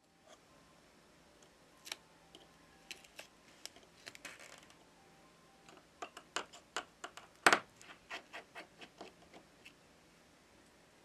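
Light clicks and taps of small repair tools on the inside of an opened Samsung Galaxy S20 Ultra, as its top screws come out and a pry tool lifts the NFC and wireless-charging sheet. The clicks are scattered at first and come about three a second in the second half, the loudest about seven and a half seconds in.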